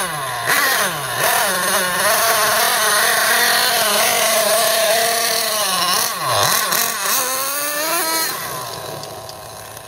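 Team Associated MGT 8.0 nitro RC monster truck's small glow engine revving up and down as the truck drives, its pitch dropping steeply about six seconds in and then climbing again. It grows quieter near the end.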